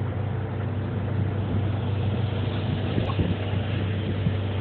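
Engine running steadily at a constant speed, an even low drone.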